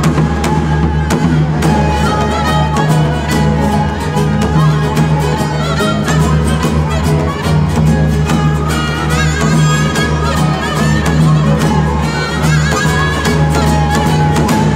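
Chamber ensemble of Korean daegeum and baroque flute, violin, cello and theorbo playing together: a melody of wind and bowed-string notes over a steady low drone, with frequent sharp plucked or struck notes.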